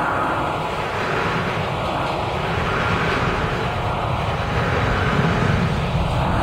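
New York City Subway train rumbling steadily in the tunnel, with a little more rumble toward the end.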